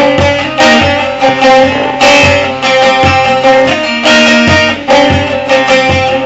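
Bağlama (Turkish long-necked saz) played solo: a strummed melodic instrumental passage of a Turkish folk song, with accented strokes about twice a second.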